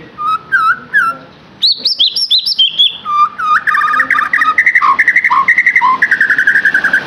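White-rumped shama (murai batu) singing: quick, varied whistled phrases, then from about halfway a long, fast run of rapidly repeated notes that cuts off abruptly near the end.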